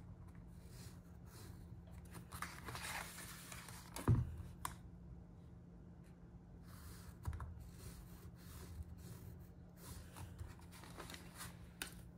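Scoring tool drawn along a ruler into cardstock: a series of short scratchy strokes, with a knock about four seconds in as ruler or paper is handled.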